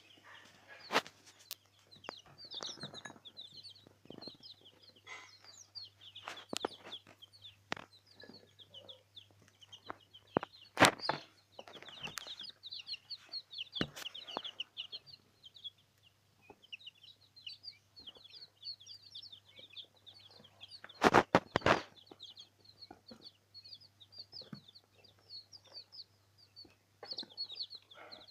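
A brooder full of young chicken, quail and pheasant chicks peeping constantly, many short high chirps overlapping. A few sharp knocks cut through, the loudest a quick cluster about three-quarters of the way in, over a faint steady hum.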